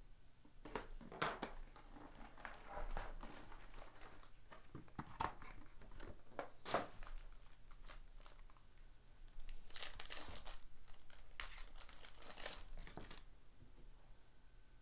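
Foil wrappers of 2018 Upper Deck Goodwin Champions card packs and the box's plastic wrap crinkling and rustling as the hobby box is cut open and its packs are pulled out and squared into stacks. Scattered rustles come first, then a denser run of crinkling in the later part that stops shortly before the end.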